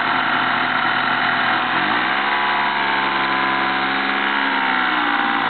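Honda Spree scooter's small two-stroke engine idling, then revved up hard about two seconds in and held at high revs for about three seconds with the brake on, in a burnout attempt. The revs drop back toward idle near the end.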